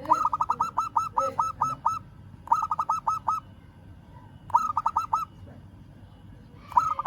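Zebra dove (perkutut) singing: four bursts of quick, repeated coo notes, the first about ten notes long and the later ones shorter, with brief pauses between bursts.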